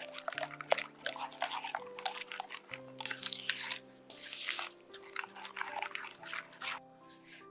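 Irregular short scraping and rustling strokes of hands-on baking preparation, several a second, over soft background music of held notes.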